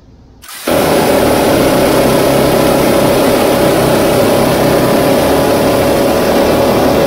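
Minigun firing one long continuous burst that starts about half a second in, its shots too fast to hear apart, so they merge into one steady, very loud burr.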